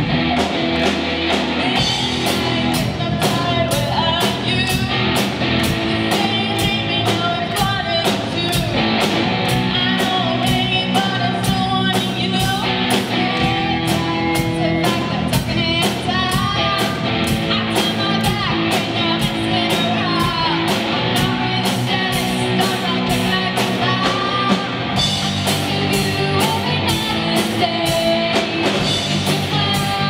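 Live rock band playing: a drum kit keeps a steady beat under electric guitars, and female voices come in singing about two seconds in.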